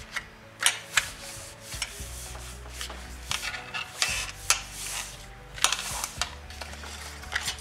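Cardstock being handled and cut on a paper trimmer (massicot): a run of short clicks and taps mixed with brief scraping, rubbing strokes of blade and paper. The trimmer leaves small fuzz on the cut edge despite a new blade, which she puts down to the quality of the paper.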